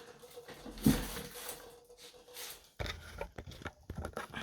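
Handling noise as the camera is repositioned: one sharp knock about a second in, then rubbing and a quick run of small clicks and taps from about three seconds in.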